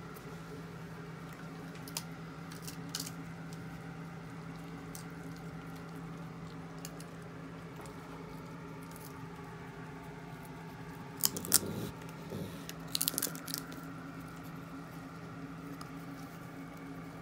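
Young raccoons crunching peanuts in the shell: a few scattered cracks, then louder clusters of crunching about two thirds of the way through, over a steady low hum.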